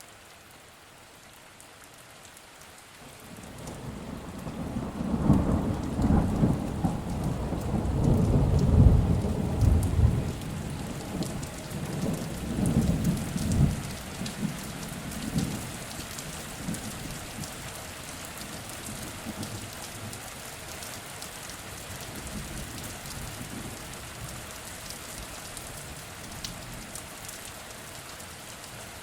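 Steady rain falling, with a long rolling thunderclap building about three seconds in, peaking over the next several seconds and fading away by the middle.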